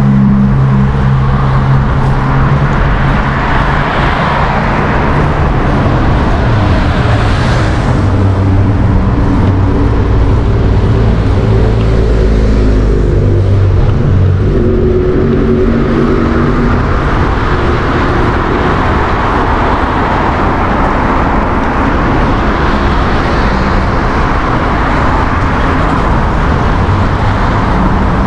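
City street traffic heard from a bicycle: motor vehicles running close by over a continuous rumble, with engine hum most prominent in the first seconds and again through the middle.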